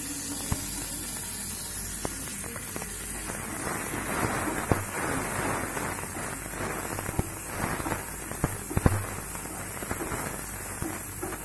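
Mustard seeds, dried red chillies and curry leaves sizzling in hot oil in a frying pan for a tempering: a steady hiss with many sharp pops, busiest in the middle.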